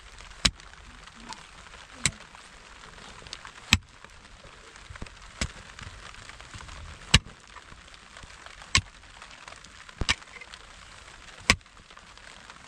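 A series of about eight sharp, heavy strikes at a steady pace, one roughly every second and a half, with one double strike about ten seconds in: something being struck again and again with a swung tool.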